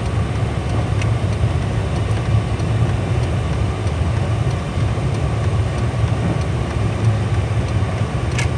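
A car's engine and road noise, a steady low rumble heard from inside the car, with a brief sharp sound near the end.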